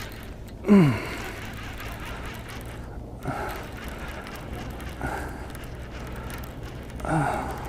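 Low steady wind rumble on the microphone while a hooked speckled trout is reeled in on a baitcasting reel. Two short falling vocal grunts come about a second in and near the end.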